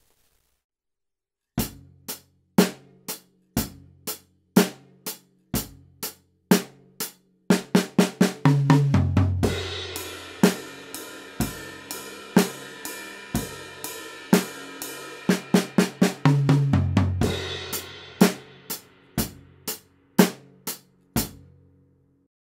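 An acoustic drum kit played in an untreated, reverberant room. It starts with single strokes about once a second, moves into a busier passage with cymbals and bass drum, then goes back to single strokes.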